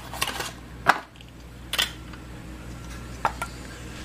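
Metal canning lids and canning gear clinking and knocking as they are taken out: four or so separate short clinks over a low steady hum.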